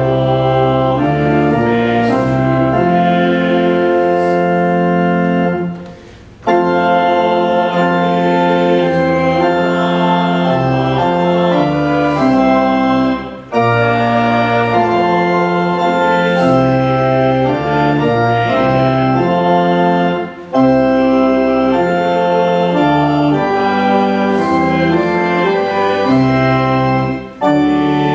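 Church organ playing a hymn tune in full sustained chords, with a short break between phrases about every seven seconds.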